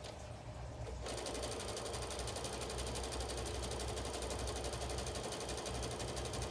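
Brother electric sewing machine starting up about a second in and then stitching steadily at an even, rapid needle rhythm, sewing a zigzag seam through fabric.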